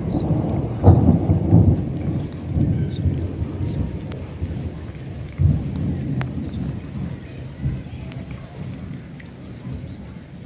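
Rolling thunder: a low rumble that swells about a second in and slowly dies away, with rain falling.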